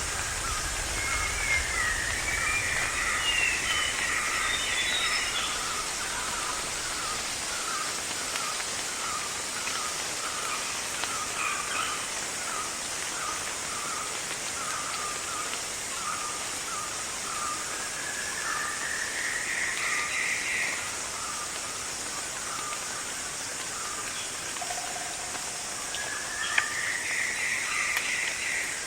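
Rainforest ambience: a steady high insect drone under birds calling, one repeating a short note about twice a second through the first half, with rising trills now and then. A low rumble sits under the first few seconds.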